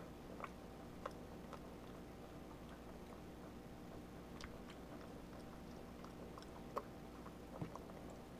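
Java macaque chewing pot roast: faint wet clicks and smacks of her mouth, scattered irregularly over a steady low hum.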